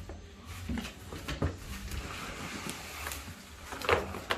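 Handling noises from mower parts being worked by hand: scattered light clicks and knocks, with a louder knock near the end.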